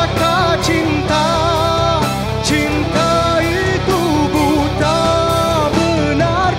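A rock band playing live: electric guitars, bass guitar and drums, with a held melodic lead line over a steady beat.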